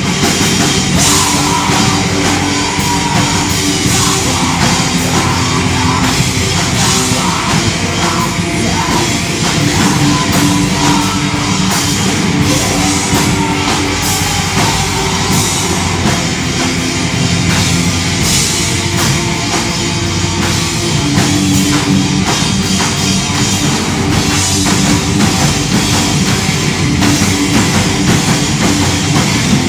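Live metal band playing loudly: distorted electric guitars, bass guitar and drum kit, with cymbal crashes every few seconds.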